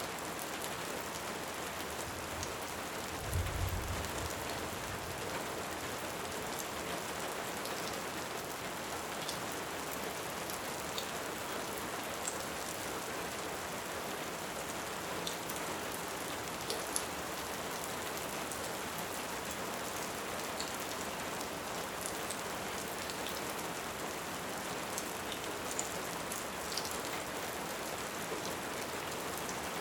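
Steady rain with scattered faint crackling ticks, as from a fireplace, and a brief low rumble about three seconds in.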